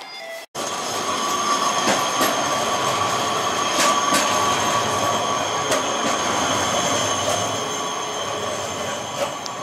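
Articulated low-floor street tram passing close by on its rails, its wheels squealing on the track in several held high tones over a steady rumble, with a few sharp clicks. It starts suddenly about half a second in.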